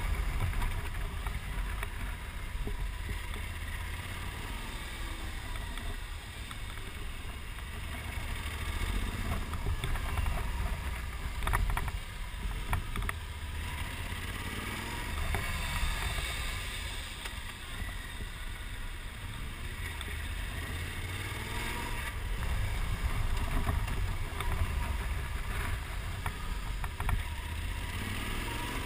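A motorcycle's engine running at riding speed under a steady rush of wind on the microphone, its pitch rising and falling several times as the throttle opens and closes.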